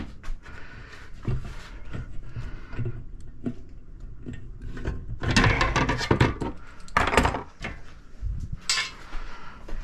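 An aluminium mounting plate and hand tools being handled on a wooden workbench: scattered knocks, clinks and scrapes, with a cluster of sharp knocks about five to seven seconds in.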